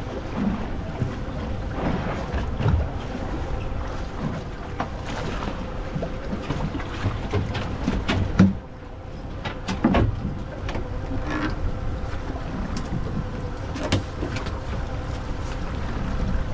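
Wind buffeting the microphone aboard a small fishing boat, with water washing around the hull and a faint steady hum beneath. A few short knocks come through, the sharpest a little past the middle.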